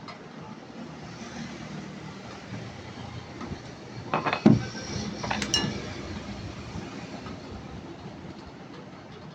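A few sharp clinks and knocks of hard objects being handled, in two short clusters around the middle, over a steady low background noise.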